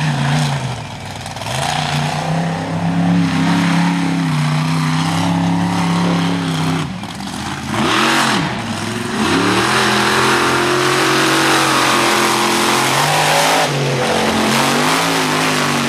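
Bigfoot monster truck's engine revving hard on a run around a dirt course. The pitch falls and climbs as the throttle comes off and goes back on, with one sharp drop and re-rev a little before halfway.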